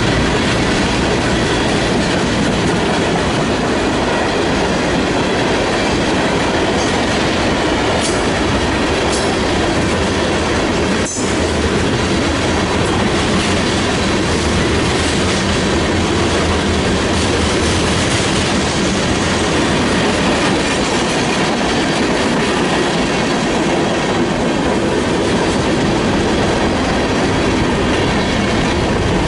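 Norfolk Southern manifest freight train cars rolling past: a steady loud rumble of steel wheels on the rails, with clickety-clack at the rail joints.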